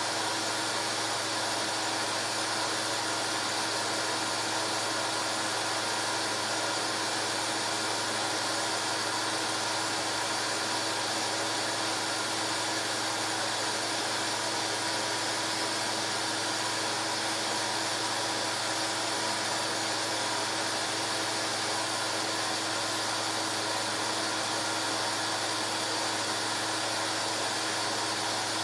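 Steady, unchanging hiss with a constant low hum and a few faint steady tones.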